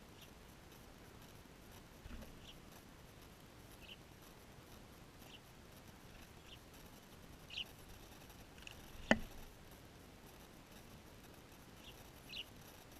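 Small birds giving short, high chirps every second or so, with one sharp click about nine seconds in.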